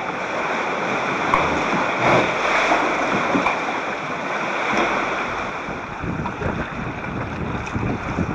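Choppy sea water sloshing and splashing against rock and around the bow of a plastic sit-on-top kayak, picked up by a camcorder in a waterproof housing on the bow. Steady wash of water with a few sharper splashes.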